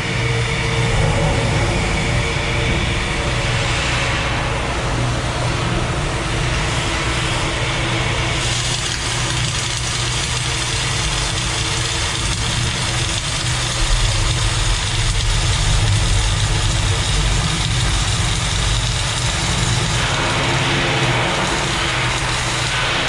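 Steady welding noise: a continuous arc buzz and hiss over a low machine drone, with the hiss shifting in tone about eight seconds in and again near the end.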